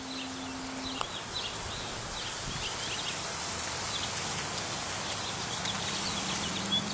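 Small birds chirping again and again over a steady outdoor hiss, with a faint low hum at the very start and again near the end.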